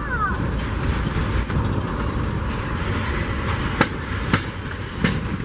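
Diesel-electric freight locomotive and its cars rolling along the track: a steady engine rumble with the wheels running over the rails, and a few sharp clacks at rail joints near the end.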